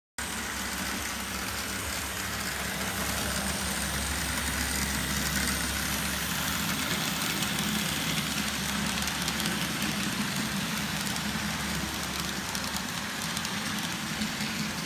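OO scale model diesel train running on the layout track: a steady low hum and rumble from the locomotive's motor and wheels, with even noise over it and no breaks.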